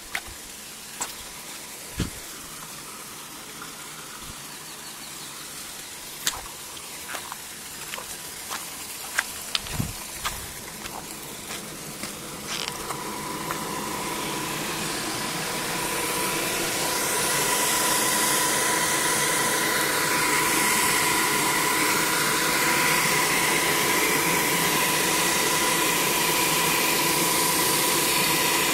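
Footsteps knock on a stony path for the first dozen seconds. Then the steady whine and hum of a small hydroelectric power house's turbine and generator, over a loud hiss of rushing water, grows louder and holds steady for the second half.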